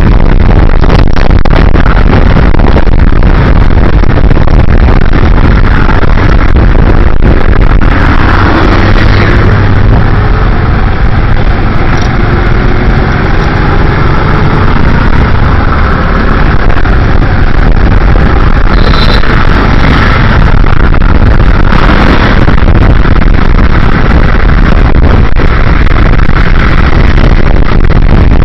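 Loud, steady wind rush over the microphone of a handlebar camera on a moving TVS Metro motorcycle, with the bike's engine and passing traffic beneath it, their pitch wavering up and down.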